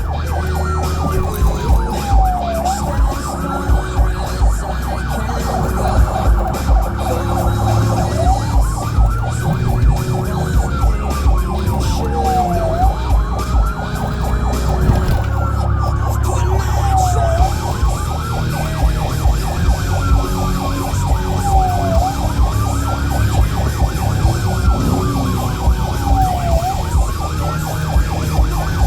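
Florida Highway Patrol car's electronic siren in wail mode, its pitch rising and falling slowly about once every five seconds, over a steady low vehicle rumble with frequent short knocks.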